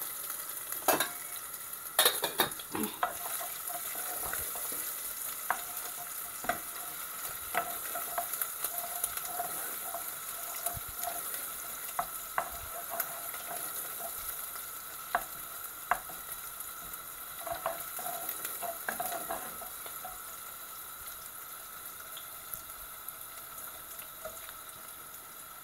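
Sliced onions and ginger-garlic paste sizzling in hot oil in a stainless steel saucepan, stirred with a wooden spoon that knocks against the pan now and then. The knocks mostly stop for the last few seconds and the sizzling goes on.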